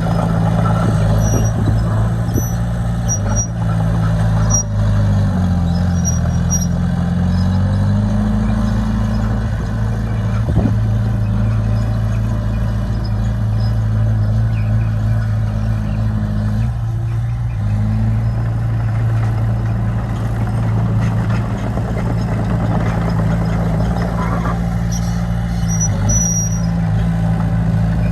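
Heavy diesel engine of earth-moving equipment running steadily. Its engine note drops around five seconds in and climbs back a few seconds later.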